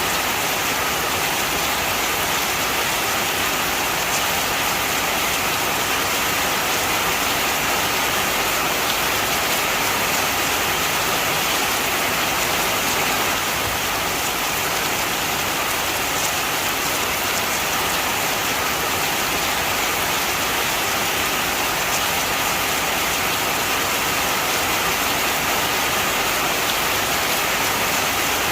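Heavy rain falling and pattering on surfaces, a steady even hiss.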